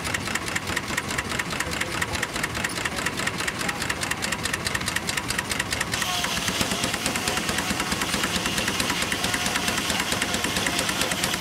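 Steam traction engine driving a sawmill by a long flat belt: a fast, even beat of exhaust and machinery knocks. The sound turns harsher and brighter about halfway through.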